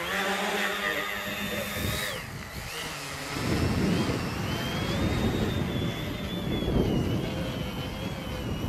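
Home-built tricopter's motors and propellers whining as it takes off and flies. The whine rises at the start, dips after about two seconds, then wavers up and down in pitch with the throttle. A low rumble joins about three and a half seconds in.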